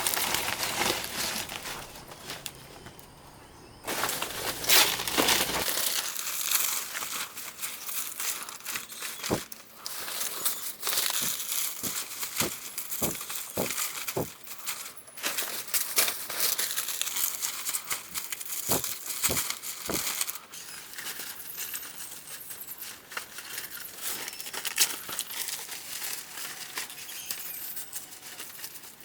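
Crinkling, rustling handling noise throughout, with a low rumble that stops about five seconds in and a run of sharp clicks and knocks in the middle.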